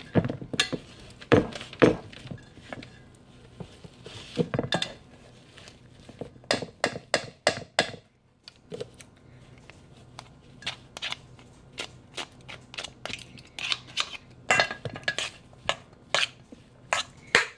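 Boiled potatoes being mashed in a stainless steel bowl: a plastic potato masher, then a fork near the end, knocks and scrapes against the metal bowl in irregular runs of sharp clicks and clanks.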